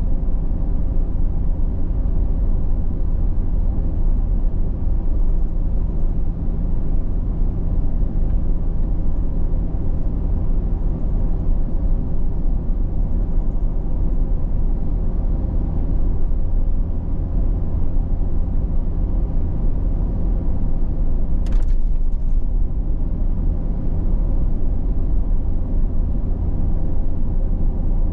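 Steady low rumble of a car driving at road speed, heard from inside the cabin: engine drone and tyre noise. A single brief click about three-quarters of the way through.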